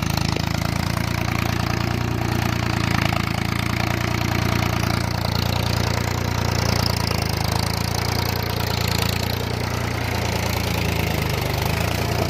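Tractor diesel engine running steadily under load as it pulls a tine cultivator through the soil.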